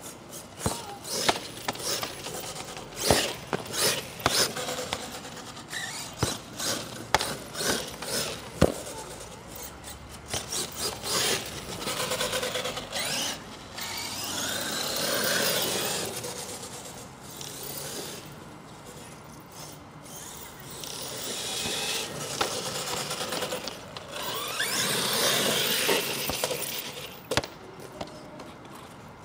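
Brushless HPI Savage RC monster truck running: a string of sharp knocks and clatters, then its motor whine and tyre noise swelling and fading twice as it passes.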